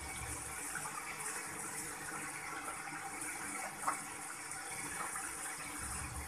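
Chicken pieces cooking in oil in a steel pot, giving a steady soft sizzle, with one brief tap about four seconds in.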